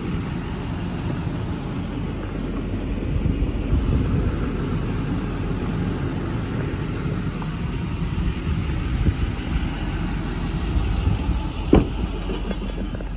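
Steady low rumble of an idling engine, with one sharp knock near the end.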